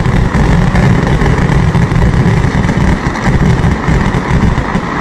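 A vedikettu fireworks barrage: a loud, dense run of firecracker blasts merging into a continuous rumble, with no gap between them.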